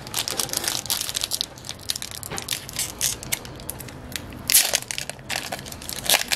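Crackling, crinkling foil wrapper of a trading card pack being twisted and torn open by hand, with a louder crackle about four and a half seconds in.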